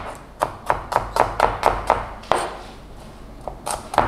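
Chef's knife slicing shallots on a plastic cutting board: quick taps of the blade striking the board, about four a second, stopping a little past two seconds in and starting again near the end.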